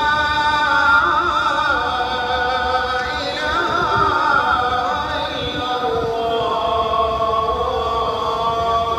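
The adhan, the Muslim call to prayer, sung by a male muezzin over the mosque's loudspeakers. Long held notes, with a run of wavering melismatic ornaments between about one and four seconds in.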